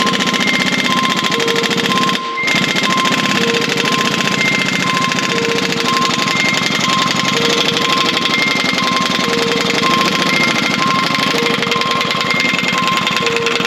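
Pneumatic tool hammering rapidly and steadily on a heat-treated, seized broken stud, trying to back it out, with a short let-up of the trigger about two seconds in.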